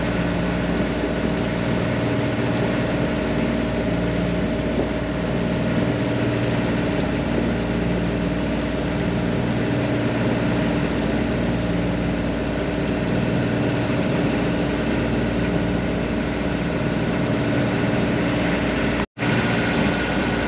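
A boat's engine running steadily under way, a constant drone with the rush of water and wind over the hull. The sound breaks off briefly near the end.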